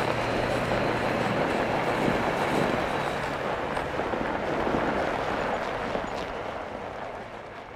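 Semi-trailer truck passing on a snowy road: a steady rush of tyre and road noise that slowly fades away.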